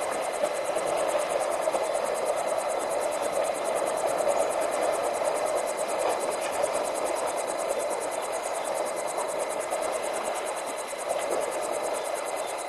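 Night ambience at a river: a steady rushing noise, with a fast, high, evenly pulsing insect trill running over it.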